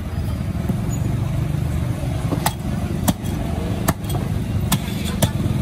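Cleaver chopping a snakehead fish on a wooden chopping block: five sharp chops about a second apart, starting about two seconds in. Under it, a steady low engine rumble.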